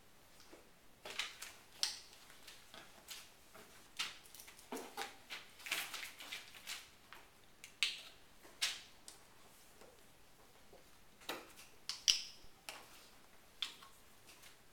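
Plastic paint bottles being handled: irregular clicks, taps and short squishy sounds as caps are worked, paint is squeezed out and bottles are set down.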